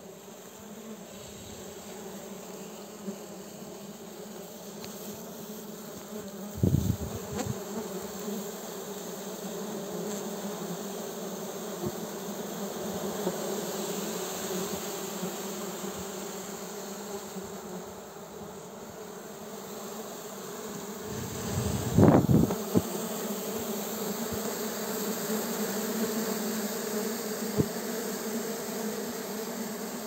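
A honeybee colony buzzing steadily on its comb, heard close up. Two loud thumps break in, about a quarter of the way through and again about three-quarters through.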